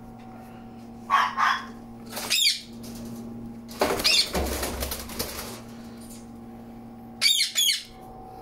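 Clogs and socked feet shuffling on a woven mat and tile floor: a few short scuffs and rustles, with a longer scraping shuffle and a dull knock about four seconds in, as the feet slip out of the clogs. A faint steady hum runs underneath.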